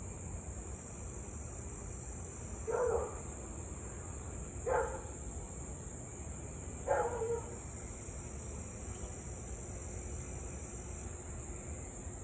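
A husky barking three times, each bark short and a couple of seconds apart, over a steady high drone of insects.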